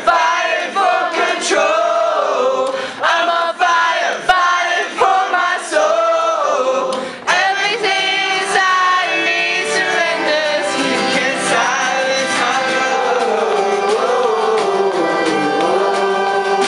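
Live acoustic rock band singing together around one microphone, several male voices in unison and harmony over acoustic guitar, accordion and drum. Drum hits mark the first half; later the voices hold long notes over the accordion and guitar.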